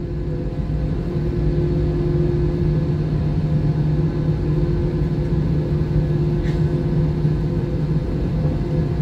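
Jet airliner cabin noise from a window seat over the wing of an Airbus A319-115: the CFM56 engines running with a steady hum over a low rumble. A brief faint tick about six and a half seconds in.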